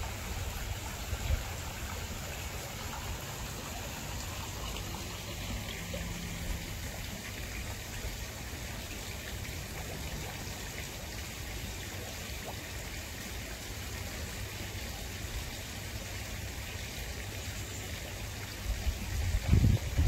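Water running steadily in a garden koi pond, an even trickling rush with no distinct splashes.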